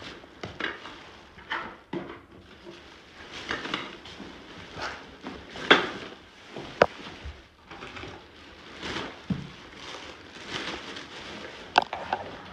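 Irregular knocks and clatter of objects being handled and set down, with rustling in between; the sharpest knocks come near the middle and just before the end.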